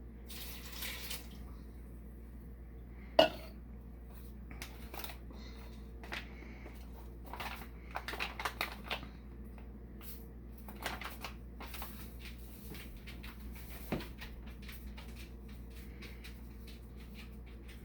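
Kitchen clatter of cooking gear being handled at a pressure cooker's pot: scattered clicks and knocks, one sharp loud knock about three seconds in and a burst of rattling around the middle, over a steady low hum.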